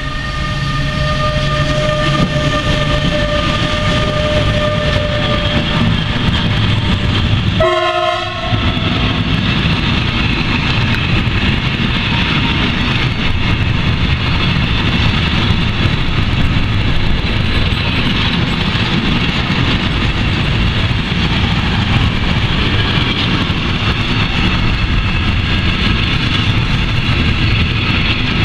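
Bombardier Traxx E186 electric locomotive passing close with a steady multi-tone whine that fades out over the first five seconds, followed by a long intermodal train of loaded container flat wagons rolling past with steady wheel and rail noise. There is a brief break about eight seconds in.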